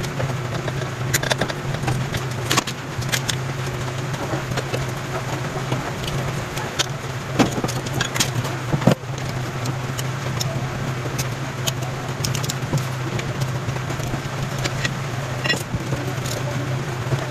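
Scattered metallic clicks and clinks of parts and tools being handled, over a steady low hum.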